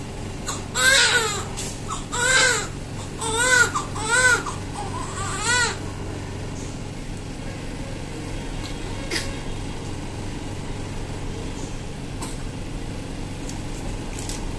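Newborn baby crying in five short wails during the first six seconds, each rising and falling in pitch, then falling quiet over a steady background hum.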